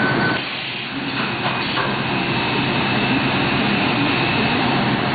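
Steady running noise of a Biesse Skipper 100 CNC panel machine and its roller conveyor, with a low hum underneath. A short high tone sounds at the start, and a steady high whine sets in about a second and a half in and stops near the end.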